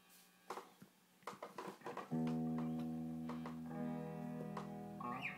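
Solo electric guitar through a medium delay effect: a few quiet clicks and short plucked notes, then about two seconds in a chord rings out and sustains, with further notes added over it.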